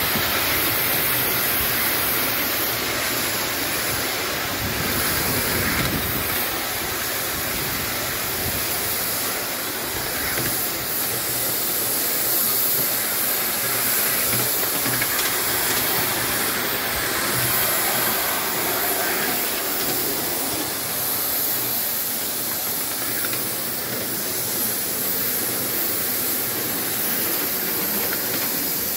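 5-inch gauge live-steam model of a BR Britannia locomotive running along a miniature railway track, with a steady hiss of steam and the running noise of the train.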